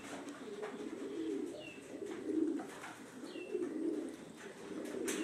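Racing pigeons cooing, several birds calling at once and overlapping, with a few faint short high chirps.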